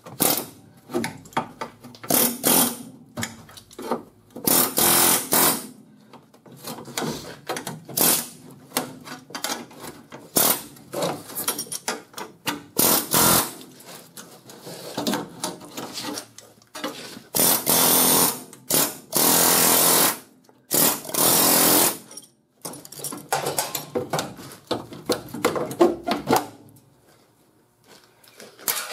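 Air hammer (pneumatic chisel) hammering in repeated bursts of a second or two, driven under the spot welds to break the rusted rocker panel free of the body; it stops near the end.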